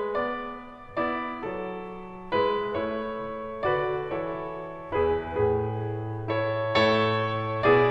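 Background piano music: a slow, gentle piece with notes and chords struck about once a second, each left to ring and fade.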